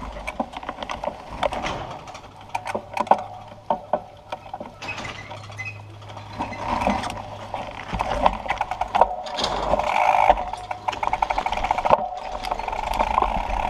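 Propain Tyee mountain bike rolling over a rough dirt track: frame and chain rattling, with irregular knocks from the bumps and fast, fine clicking of the rear hub while coasting.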